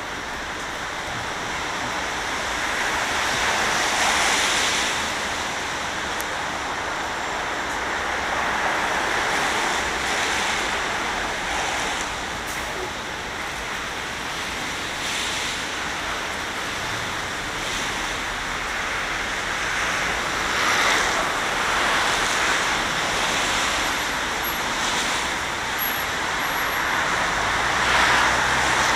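Street traffic on a rain-wet road: a steady hiss of tyres on wet asphalt, swelling each time a vehicle passes, every few seconds.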